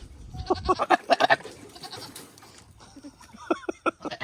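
Rutting buck goat courting a doe, making short, choppy sputtering calls in three quick bursts.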